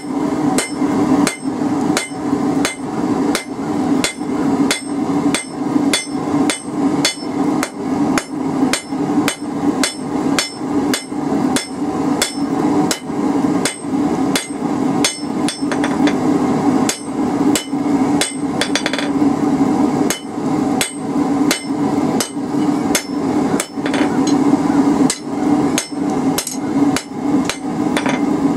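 Hand hammer striking a red-hot steel bar on an anvil in a steady rhythm of about two blows a second, flattening the bar's taper, with a steady low hum underneath.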